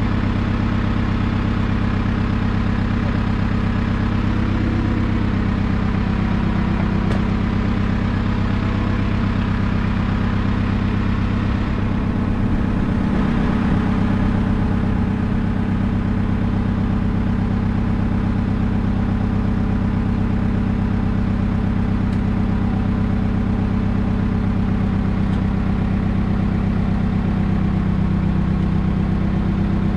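An engine idling steadily, with a brief waver in pitch about halfway through.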